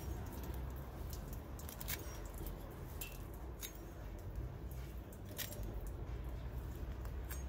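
Hand sickle's steel blade cutting through a gripped clump of grass, several sharp snips at uneven intervals over a steady low background rumble.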